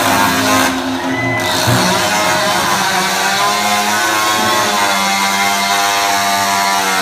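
Gas chainsaw running loud and being revved, its pitch wavering up and down.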